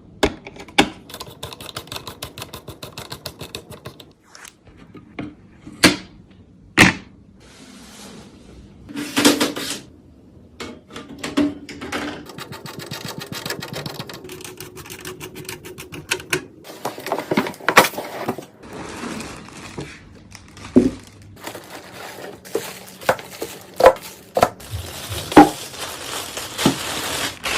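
Hands assembling PC parts: sharp clicks, taps and knocks of plastic and metal components being handled and fitted, with runs of fast ticking of about eight a second near the start and again in the middle, and short stretches of scraping and rustling.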